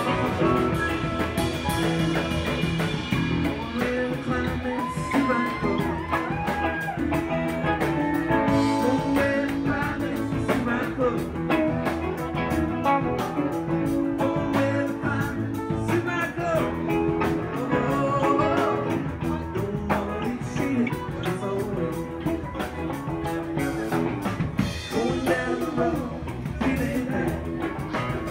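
Live rock band playing: electric guitars over bass and a drum kit, with bending guitar notes.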